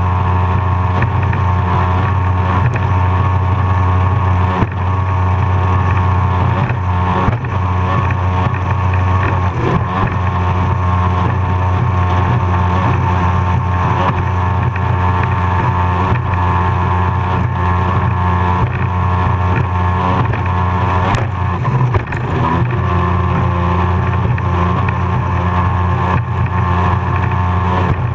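Racing powerboat's engine running hard at a steady high pitch, heard onboard with wind and water rushing past. About three-quarters of the way through, the engine note briefly dips and wavers, then settles back.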